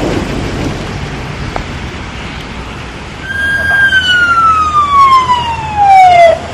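Emergency vehicle siren, heard after about three seconds of steady rain hiss: one tone that holds briefly, then glides steadily down in pitch for over two seconds and cuts off suddenly.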